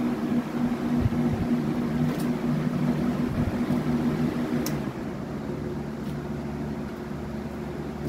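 Box fans, a Nantucket Breeze among them, running together: a steady motor hum over rushing air. Just under five seconds in, the top-mounted control knob clicks and the sound drops a little quieter, as one fan is switched down.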